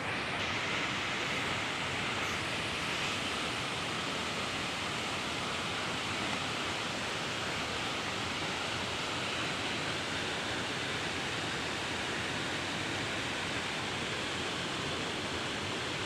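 Waterfall rushing steadily: an even hiss of falling water that does not change.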